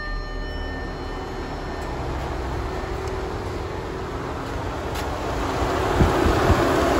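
Audi A5's electric radiator cooling fan running at full speed, a steady roaring rush that grows louder toward the end, with two low thumps about six seconds in. The fan running flat out is a symptom of the engine control unit (Bosch MED17.1) being killed by a reverse-polarity battery jump.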